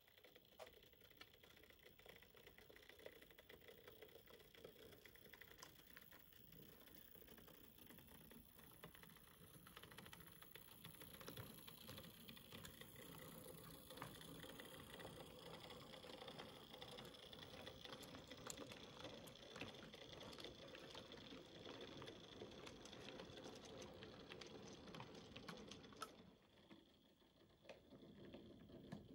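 OO gauge model trains running, faint: a small electric motor whirring with quick light clicks of wheels over rail joints and pointwork. It dips briefly near the end.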